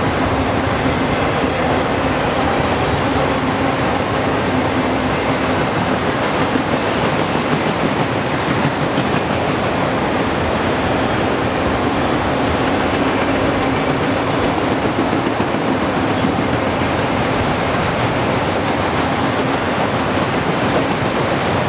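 Loaded auto-rack freight cars rolling past on steel wheels: a steady, continuous sound of wheels running on the rails.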